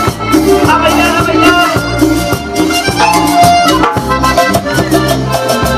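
Cumbia band playing live, an instrumental passage with a steady dance beat of percussion over bass notes and a melody line.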